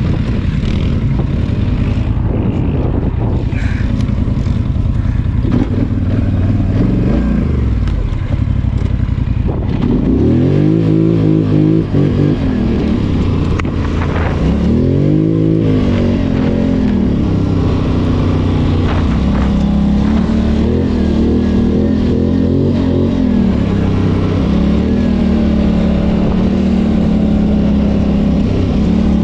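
ATV engine under way, its revs rising and falling several times around the middle, then holding fairly steady.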